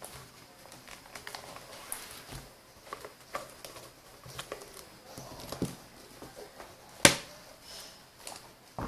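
Handling noise of a tablet being fitted into a folio case and the cover folded shut: scattered light taps, rubs and clicks of fingers and case, with one sharp knock about seven seconds in and a smaller one near the end.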